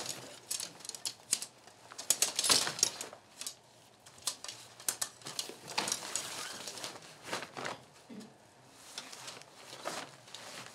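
Segmented tent poles being fitted together by hand: irregular light clicks and rattles as the sections knock and slot into each other.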